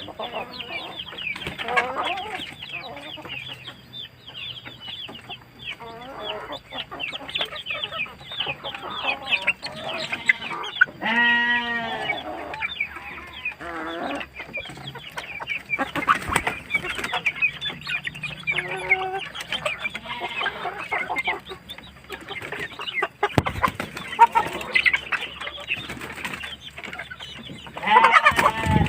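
A flock of village chickens clucking and calling, with many short calls overlapping throughout and one longer drawn-out call about eleven seconds in.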